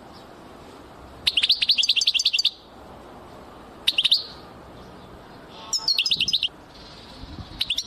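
Small songbird singing in four short bursts of rapid, high chirping notes, a second or two apart, over a low steady background hiss.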